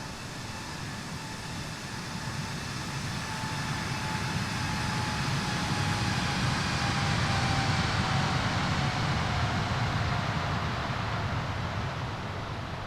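Jet airliner's engines on takeoff, a steady roar that swells to a peak about two-thirds of the way through and then fades as the aircraft passes. Over it runs a turbine whine that slowly drops in pitch.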